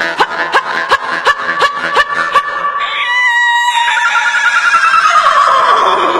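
Rhythmic droning music with regular clicks about three a second. About three seconds in it gives way to a vocal horse-neigh imitation: a high call that breaks into a long, quavering whinny sliding down in pitch.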